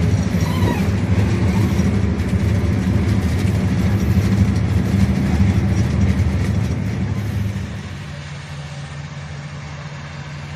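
Combine harvester's D-260 inline-six diesel engine, freshly rebuilt with a new piston group, running at high revs, then dropping to a lower, quieter idle about eight seconds in.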